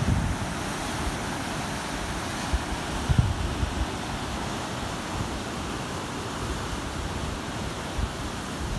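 Steady rush of Pacific surf breaking over rocks, with wind buffeting the microphone in a few low thumps, the strongest about three seconds in.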